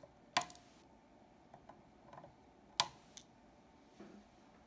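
Flush cutters snipping the excess lead wire off a freshly soldered resistor: a sharp click about half a second in, and another sharp click near three seconds in.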